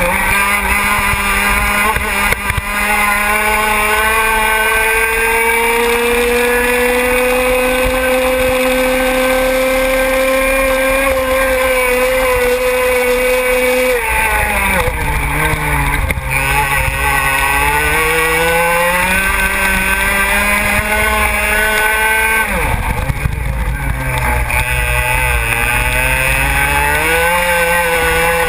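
125 cc two-stroke racing kart engine heard from onboard at high revs, its pitch climbing slowly along a long stretch. About halfway it drops sharply as the kart brakes for a corner, climbs again, drops once more about two-thirds through, and climbs again near the end.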